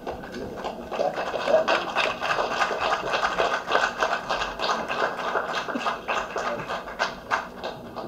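Scattered audience applause, single claps standing out among the rest, swelling about a second in and dying away near the end.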